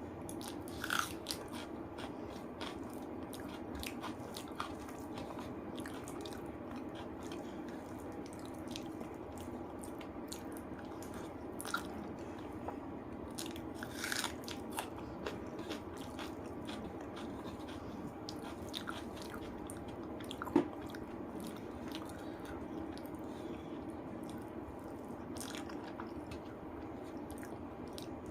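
Close-miked eating of rice and spicy chicken curry: continuous chewing with scattered bites and crunches heard as many short clicks, a few louder ones about a second in, around twelve and fourteen seconds, and one sharp one about twenty seconds in.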